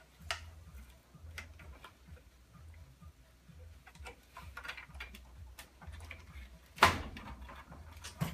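Scattered light clicks and taps of parts being handled and worked loose while an old desktop computer tower is taken apart, with one louder knock about seven seconds in.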